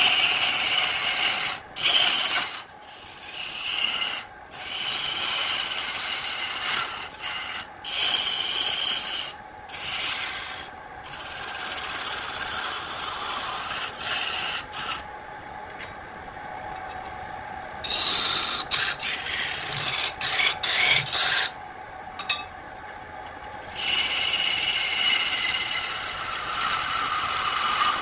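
A hand-held turning tool cuts into a spinning wooden spindle on a lathe, making a harsh scraping hiss. The hiss comes in passes of a second to several seconds, breaking off briefly each time the tool is lifted or shifted, over a steady hum.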